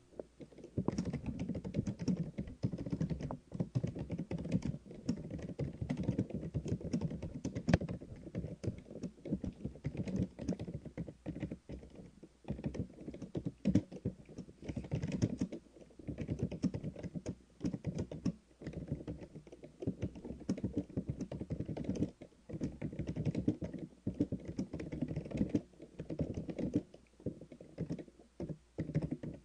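Typing on a computer keyboard: a fast, irregular run of dull, muffled key clicks with short pauses between bursts.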